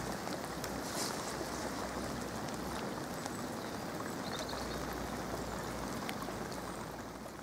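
Steady hiss of heavy rain falling on lake water at the bank's edge, with a few faint ticks of drops.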